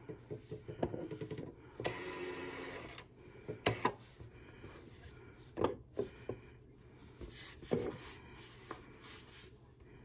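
Light clicks and rubbing from a rotary phone's dial as it is turned and wiped with a wet cloth, with a second-long rubbing whir about two seconds in.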